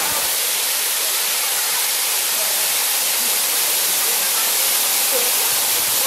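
Steady rushing of a waterfall cascading over rock into a pool, with faint distant voices near the end.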